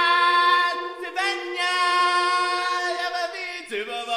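Voice singing a cappella, holding a long steady note, breaking off about a second in and holding a second long note, with a change of note near the end.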